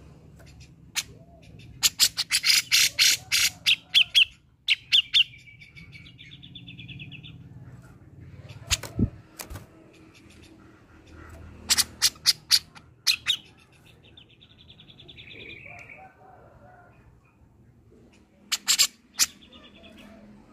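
Grey-cheeked bulbul (cucak jenggot) calling in three bouts. Each bout is a rapid string of loud, harsh notes, and the first two run on into a higher buzzy trill.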